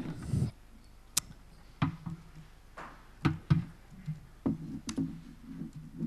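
A few scattered clicks and knocks, such as a laptop and a handheld microphone being handled, and from about halfway a low, indistinct murmur.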